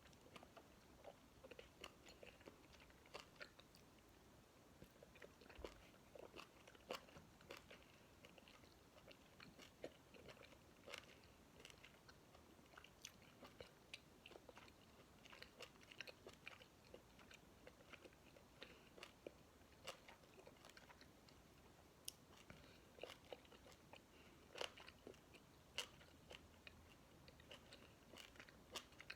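Faint close-up chewing and mouth noises of someone eating a chicken wing: irregular soft clicks and smacks.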